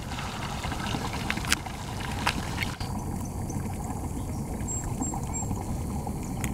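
Steady pouring and trickling of water from a miniature-golf course's water feature into its pond, with a couple of faint clicks in the first few seconds.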